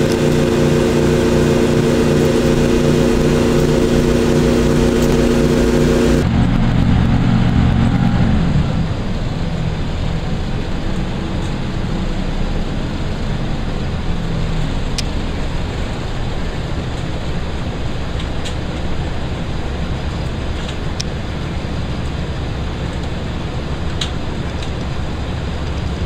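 Onboard a Class 165 diesel multiple unit: the underfloor diesel engine drones under power, then the sound changes abruptly about six seconds in and the engine note falls away around eight seconds. After that there is steady wheel and rail rolling noise with a few light clicks.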